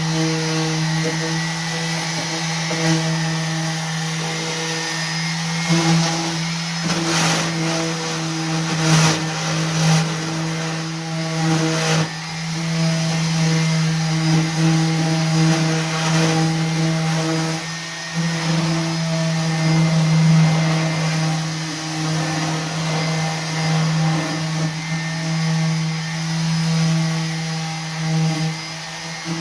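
Electric orbital sander running steadily against painted wood, sanding the finish back to distress it. The motor holds a constant pitch, with a few brief rougher patches as the pad catches edges.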